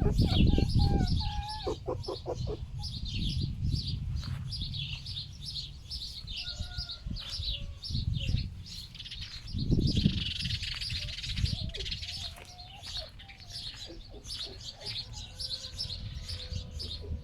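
Small birds chirping continually, with wind rumbling on the microphone, loudest at the start and again about ten seconds in.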